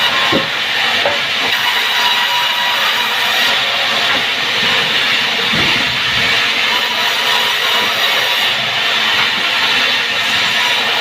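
Sawmill saw cutting through timber, a steady loud noise that keeps on without a break.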